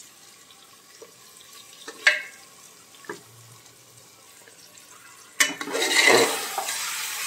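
A few light clicks as raw mutton pieces are handled over the pot. Then, about five seconds in, the meat drops into hot spiced oil in an aluminium pressure cooker and sets off a sudden loud sizzle, with a ladle stirring it.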